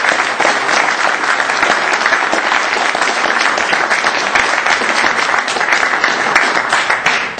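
Audience applauding, many hands clapping in a dense, steady patter that dies away at the end.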